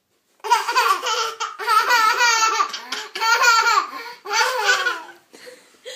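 Young child laughing in several high-pitched bouts, which stop about five seconds in.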